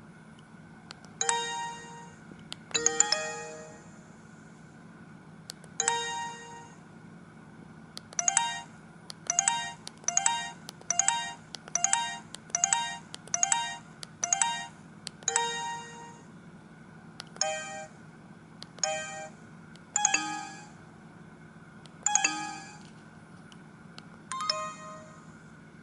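Samsung SGH-E250i mobile phone playing one of its built-in ringtones: a melody of separate chiming notes, each ringing and fading, with a quicker run of evenly spaced notes in the middle. A faint steady hum lies underneath.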